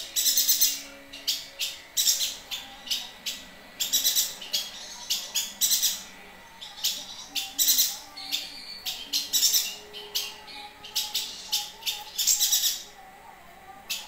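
Caged chestnut-crested yuhina singing in full voice: rapid runs of short, very high chirps, one after another with brief gaps.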